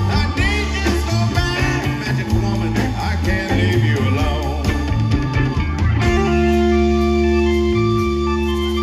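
Live rock band playing, electric lead guitar running fast bending licks over bass and drums, then the band holds long sustained chords from about six seconds in.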